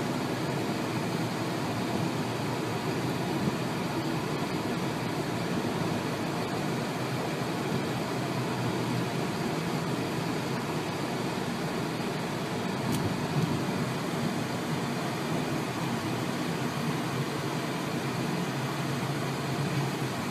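Steady noise inside a car: a constant low rumble of engine and road with a hiss like the ventilation fan.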